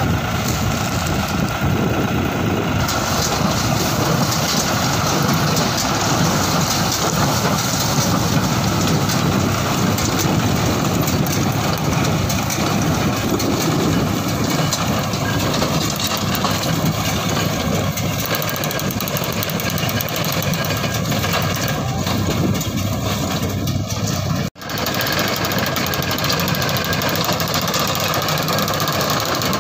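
Tractor engine running with a PTO-driven New Holland small square baler working behind it, the machine clattering steadily as it picks up and bales dry sugarcane leaves. The sound cuts out for a moment about three-quarters of the way through.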